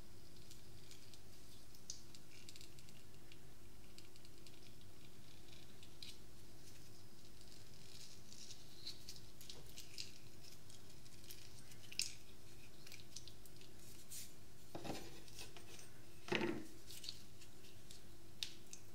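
A metal spoon scraping and squishing around inside a kiwi's skin as it is worked between skin and flesh, with many soft small clicks and scrapes. A few louder knocks come in the last third, the strongest with a dull thud.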